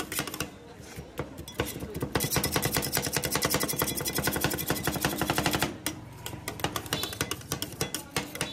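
Two metal spatulas chopping crushed Oreo biscuits and ice cream on the steel plate of a rolled-ice-cream stall, the clacks of steel on steel. Scattered strokes give way to a fast, steady run of chopping from about two seconds in until nearly six seconds in, then scattered strokes again.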